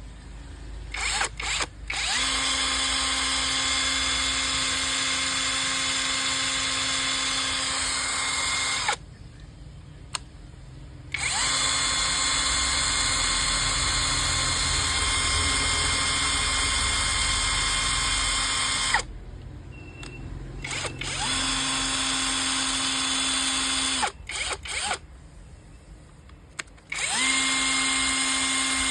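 Makita cordless drill motor spinning at a steady speed in four long runs of a few seconds each. Between runs there are short pauses and a few quick trigger blips.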